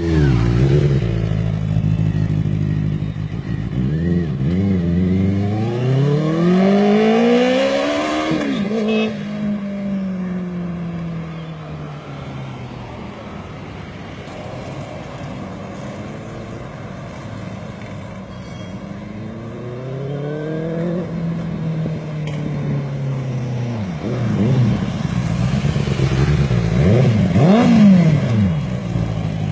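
Benelli 600i inline-four motorcycle engine idling and being revved: two long rises in pitch that fall slowly back, then a couple of quicker, sharper revs near the end before it settles to idle again.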